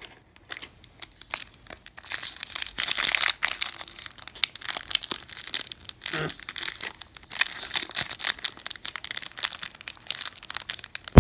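Baseball card pack wrapper crinkling and tearing as it is worked open by hand: a dense, irregular run of crackles lasting several seconds.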